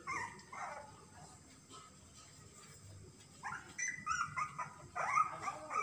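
Puppies whimpering and yipping in short, high-pitched calls: a few at the start, then a quick run of them from a little past halfway.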